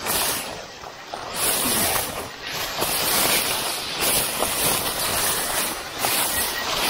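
Dense sasa bamboo grass rustling and scraping against a hiker as he pushes through it, a noisy rush that swells and fades every second or so.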